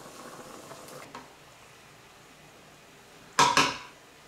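Faint steady hiss of a pot of pasta boiling and a covered pan of mince braising. About three seconds in come two sharp clatters of cookware a fraction of a second apart.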